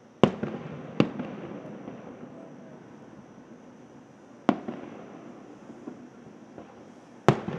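Aerial fireworks shells bursting: four sharp bangs, two about a second apart at the start, a third some three seconds later and a fourth near the end, each trailing off in a reverberating echo.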